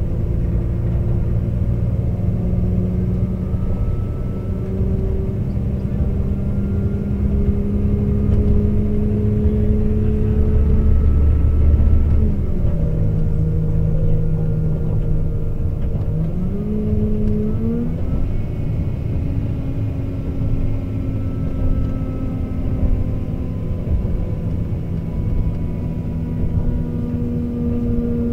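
Class 197 diesel multiple unit's underfloor MTU diesel engine pulling under power, heard from inside the carriage. Its note climbs slowly, drops sharply with the deep rumble cutting out about twelve seconds in, then rises again in two quick steps a few seconds later as the automatic gearbox changes gear.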